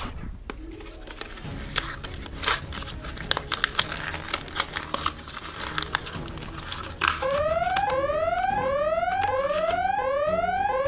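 A plastic foil blind-bag toy pack crinkling and tearing as it is pulled open, in quick irregular rustles. About seven seconds in, a loud rising whoop starts, repeating about one and a half times a second over the crinkling.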